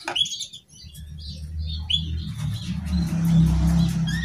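Canaries chirping in short, high calls, over a low rumble that builds from about a second in and is loudest near the end.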